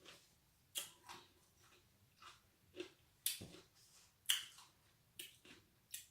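Close-up chewing of a sour pickle with whipped cream: a run of irregular, wet crunching and smacking sounds, about eight in a few seconds.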